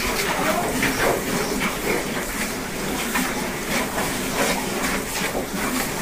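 Hands stirring and scrunching moist chopped straw and bran fodder in a feed trough: a continuous, irregular rustling and swishing.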